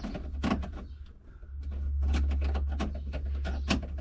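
Scattered clicks and knocks, several a second, from a screw being driven by hand into plastic dash trim and the parts being handled, over a steady low rumble that swells in the middle.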